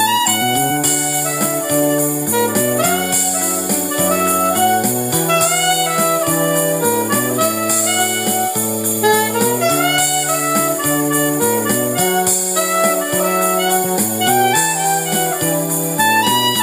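Saxophone playing a smooth, sliding melody over accompanying music of sustained low chords with a light beat.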